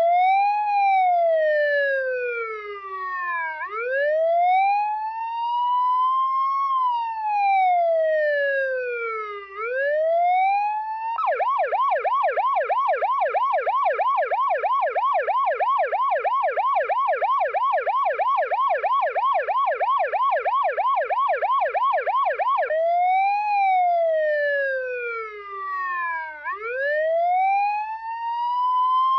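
Electronic emergency-vehicle siren on its slow wail, the pitch rising and falling over a few seconds each sweep. About eleven seconds in it switches to a fast yelp of about four sweeps a second. Some eleven seconds later it goes back to the slow wail.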